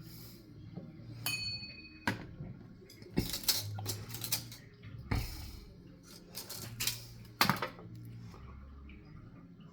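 Small metal parts, plausibly air-horn pieces, handled and set down on a hard surface: irregular clinks and knocks. One piece rings briefly about a second in.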